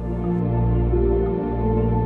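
Ambient background music: slow sustained synth chords over a low drone, with a new chord entering near the end.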